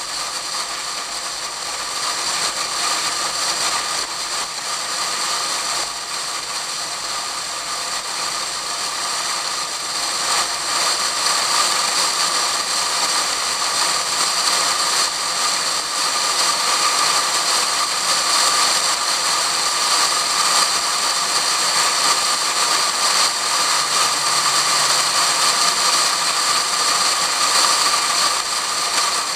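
Wind rushing over a car-mounted camera in a waterproof case at track speed: a steady, rattling hiss that gets louder about ten seconds in.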